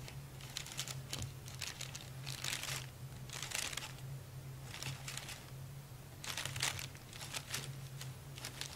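Thin plastic shopping bag crinkling in irregular short bursts as a kitten paws and bats at its handles.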